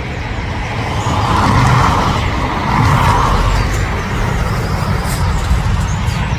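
Jet airliner engine noise: a loud, steady rushing rumble that swells twice.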